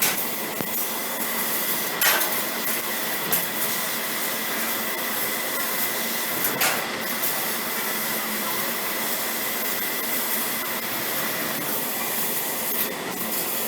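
CNC laser cutting machine running: a steady hiss with a faint high whine, broken by a few sharp clicks.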